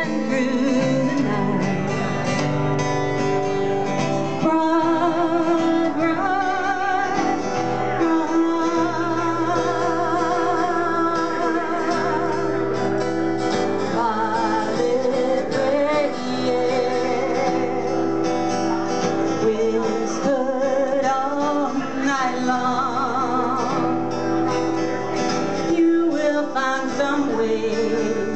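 A woman singing a song, wavering on her held notes, while accompanying herself on an acoustic guitar.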